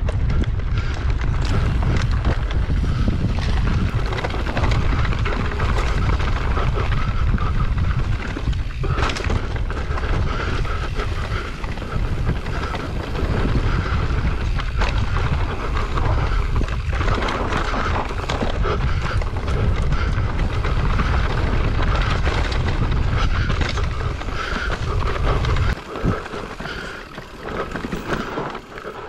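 Mountain-bike ride on a dirt trail heard through an action camera's microphone: heavy wind buffeting on the mic over tyre noise on dirt and many short rattles and knocks from the bike. About 26 s in the wind rumble cuts out abruptly, leaving quieter tyre noise and clatter.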